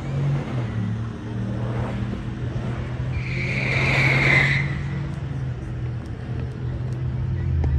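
Car engines idling at a drag strip's staging lanes, with a loud tire squeal lasting about a second and a half, roughly three seconds in.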